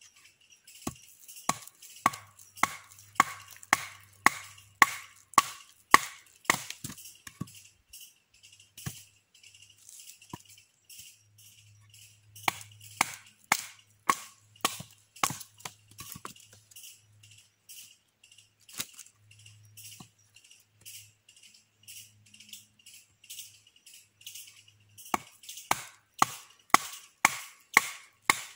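Machete splitting a stick of wood: sharp wooden knocks about twice a second as the blade is struck into the wood and hammered with a wooden baton, in three runs with sparser knocks between. A steady high insect drone runs underneath.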